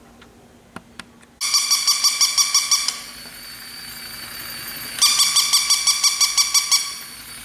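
Battery-operated walking plush toy puppy barking electronically: two bursts of rapid, evenly repeated yips, about eight a second, with a quieter steady whir of its walking mechanism between them. A couple of small clicks come just before the first burst.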